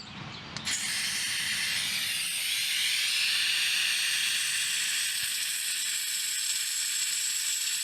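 Butane hissing steadily as a handheld butane torch is refilled from a can through the fill port in its base, starting about half a second in.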